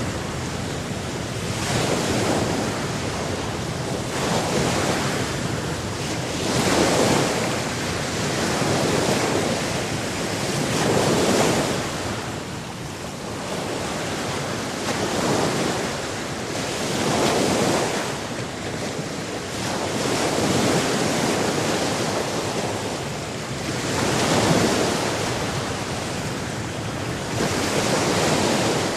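Sea surf: waves washing in and breaking one after another, swelling and falling back every few seconds over a constant rush of water.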